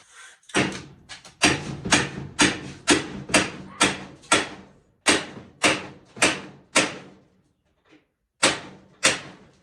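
Repeated hammer blows, about two a second, each ringing briefly, knocking a stuck front bumper section loose on a small race car. The blows stop for a moment near the end, then start again.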